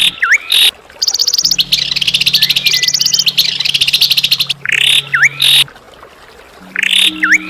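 Harsh bird calls of the kind used as tutor material for white-rumped shamas: a fast, dry rattling trill, and three harsh rasping calls, each followed by a quick dipping whistle. A low steady hum runs beneath them.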